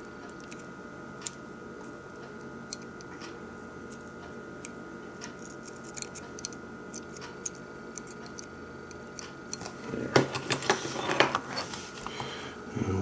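Small scratches and clicks of a hobby knife blade cutting the Kapton tape wrapped around a model locomotive's decoder circuit board: scattered single ticks at first, then a denser run of scratching and crackling from about ten seconds in.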